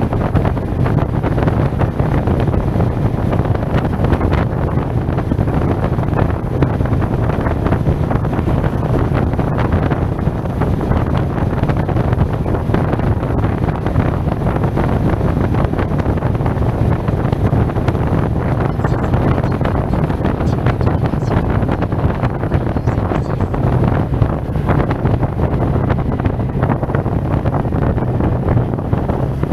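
Steady wind buffeting on a helmet-mounted action camera's microphone while riding a SYM Maxsym TL 508 scooter at a constant speed, with a low drone from the ride underneath.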